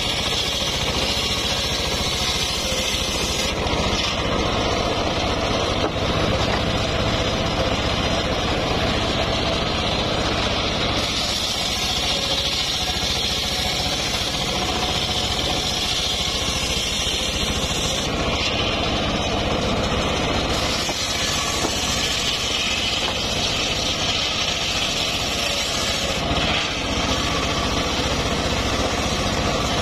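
Homemade table circular saw running steadily while ripping a mahogany log lengthwise, its large blade cutting continuously through the wood.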